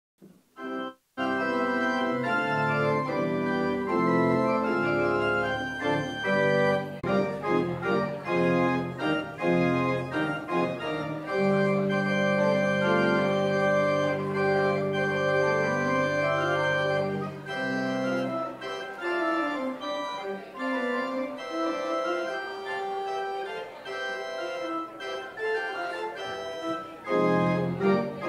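Church organ playing the postlude: sustained chords that begin about a second in, with long held bass notes in the middle.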